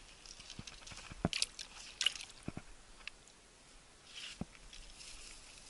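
Footsteps on dry, cracked clay and grass: irregular crunching steps with short rustles.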